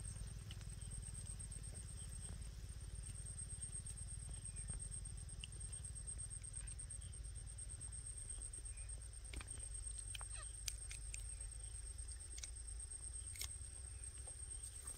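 A steady, high-pitched insect trill runs throughout over a low rumble, with a few small scattered clicks from hands handling the fish and fishing hook.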